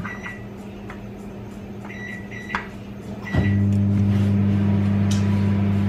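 Microwave oven keypad giving a few short beeps as the time is entered, then about three and a half seconds in the oven starts running with a loud steady hum. It is defrosting food that is still icy inside.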